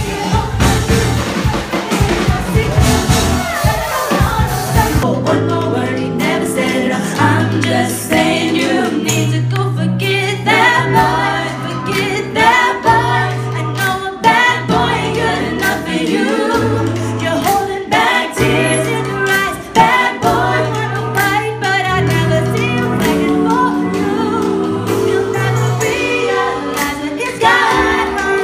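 Live band performance: several women singing together into microphones, backed by electric guitar and keyboard. The music changes abruptly about five seconds in, to a steady bass line under the voices.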